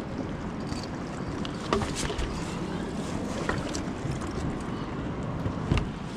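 Water lapping around an inflatable river raft drifting on calm water, with wind rumbling on the microphone. A sharp knock sounds about two seconds in and another near the end.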